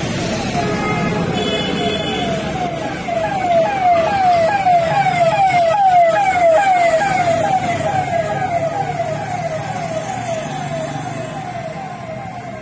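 Siren of a passing emergency vehicle: a tone that drops in pitch over and over, about twice a second, growing louder to a peak about six seconds in and then fading, over low road traffic noise.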